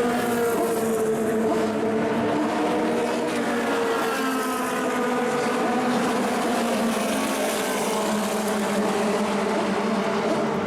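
Engines of 1960s cigar-shaped Formula 2 and Formula 3 racing cars running, several engine notes overlapping at once, their pitches shifting up and down.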